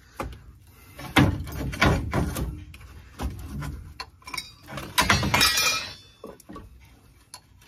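Clunks and knocks of steel suspension parts as the stock front coil spring of a Chevy S-10 is worked loose from its seat, then a loud metallic clang with ringing about five seconds in as the spring comes free.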